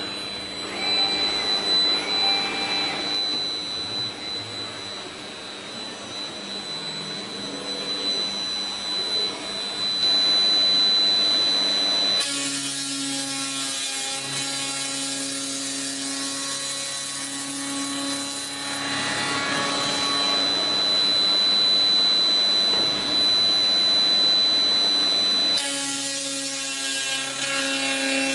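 Routech Oikos CNC beam-processing center running and machining a timber beam: a steady high machine whine mixed with sawing noise. About 12 seconds in, the sound shifts abruptly to a lower, humming set of tones; the whine comes back and then gives way to the lower hum again near the end.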